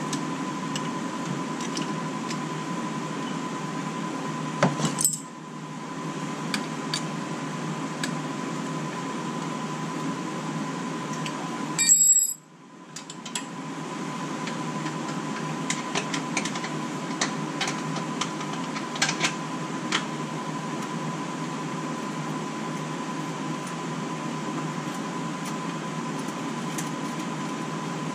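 Hand tools clicking and clinking against metal on the front brake-line fittings and caliper, over a steady background hum. There is a sharper clank about five seconds in, and the loudest, a ringing metal clink, about twelve seconds in.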